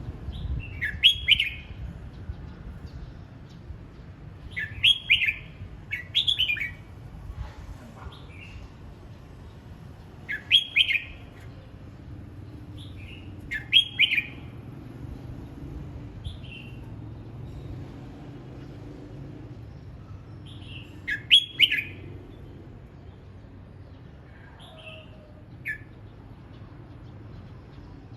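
Red-whiskered bulbul singing short, loud phrases of a few quick notes every few seconds, with softer single notes in between, over a low steady hum.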